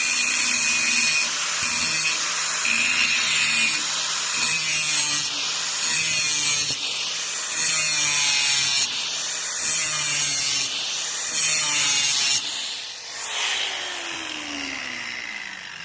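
Electric grinder sharpening a steel lawnmower blade in repeated passes of a second or two, the grinding hiss coming and going over a steady motor hum. About twelve seconds in the grinding stops and the motor's whine falls as it winds down.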